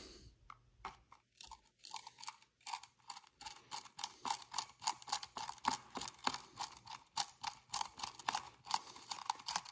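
Screwdriver turning a screw on an RC truck's motor and gear cover, making a quick run of small metal clicks and ticks, several a second, beginning about a second in. The driver is the wrong size for the screw.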